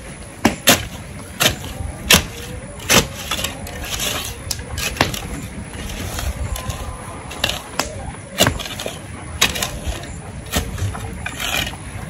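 Burning pile of palm fronds and debris crackling with irregular sharp pops, mixed with a shovel scraping and knocking through the pile, over a steady low rumble.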